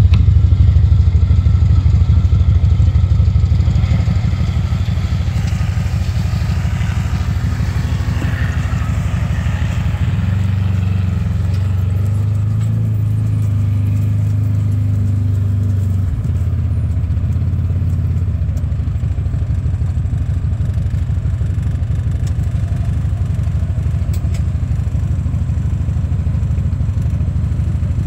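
Gleaner combine engine running steadily close by, with a low, even drone; its note shifts for a few seconds about ten seconds in.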